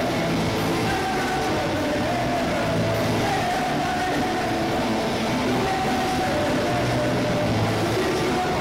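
Oi! punk rock band playing live: distorted electric guitars, bass and drums at full volume, steady and unbroken.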